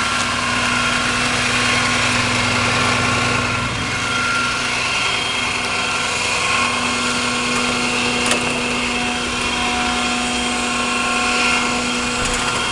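Service truck's engine running with its PTO-driven air compressor working: a steady mechanical hum with several held tones. The low rumble drops away about four seconds in.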